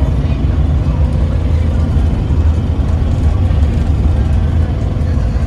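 Cabin noise inside a Yutong ZK6126HG city bus under way: a steady low engine rumble mixed with road noise.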